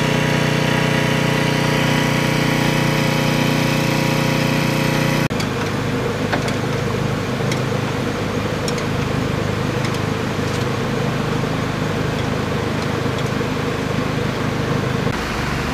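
Engine running steadily with an even, pitched hum. About five seconds in it switches abruptly to a different steady engine sound, a military vehicle's engine running, with a few faint light clicks.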